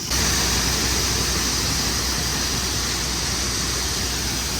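Steady noise of a vehicle on the move: a low engine hum under an even hiss of wind and road noise.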